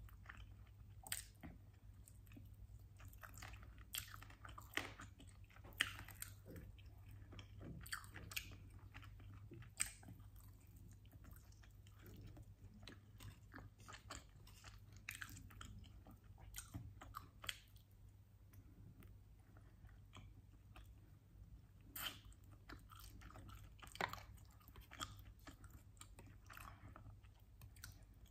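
Chewing and biting of chicken wings, with scattered sharp crunches and clicks throughout.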